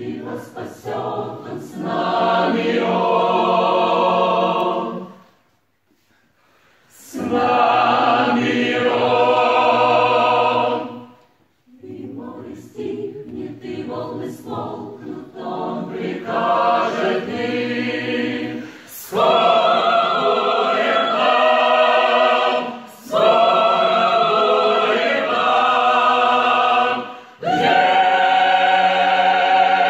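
Mixed choir of men's and women's voices singing a hymn a cappella in held chords, phrase by phrase, with a short full stop about six seconds in.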